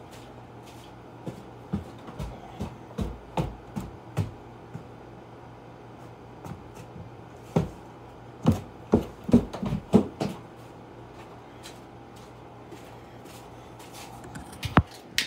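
Scattered knocks, clicks and clatters of someone moving about and handling objects, loudest in a brief cluster a little past the middle, over a steady low hum.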